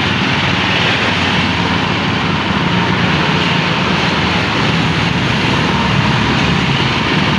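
Honda GX200 single-cylinder four-stroke engine of a Quick Capung Metal two-wheel hand tractor running steadily under load as the tractor works and turns.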